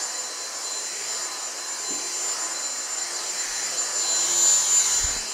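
Dyson V6 cordless stick vacuum running on its low power setting while the floor head is pushed over carpet: a steady high motor whine over rushing air. It grows louder about four seconds in, and there is a brief low thump near the end.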